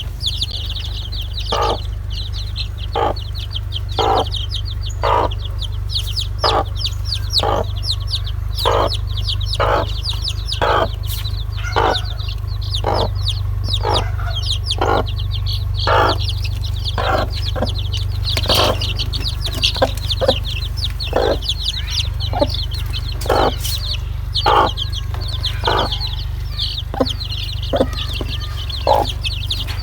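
Domestic chicks peeping continuously in high-pitched cheeps, with a hen giving a steady series of short, lower clucks about once or twice a second.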